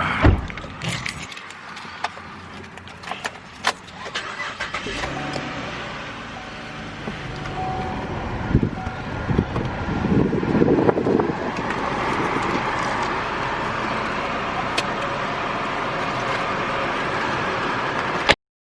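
Keys jangling and handling clicks and knocks, then a steady car running noise from about halfway through that cuts off suddenly near the end.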